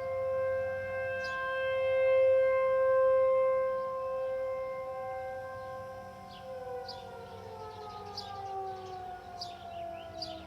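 Outdoor tornado warning siren sounding a steady multi-tone wail during its test, swelling in loudness, then winding down with falling pitch over the last few seconds.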